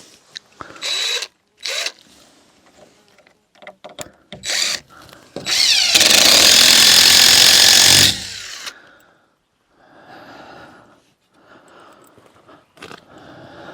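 Power drill driving a screw into the wood framing of an outhouse wall, with a few short bursts early on. About five and a half seconds in comes one long run of about two and a half seconds, rising in pitch as it spins up.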